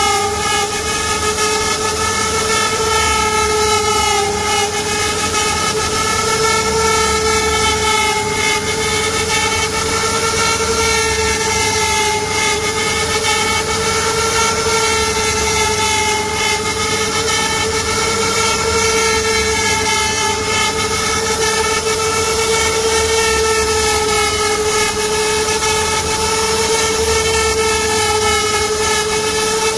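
CNC router spindle whining steadily as its tapered bit carves a relief into a wooden panel, over a hiss of cutting. The pitch dips and recovers slightly as the cutting load changes.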